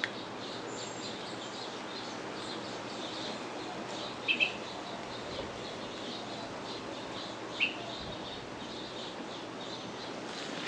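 Steady wind noise, with a small bird chirping twice: once about four seconds in and again about three seconds later.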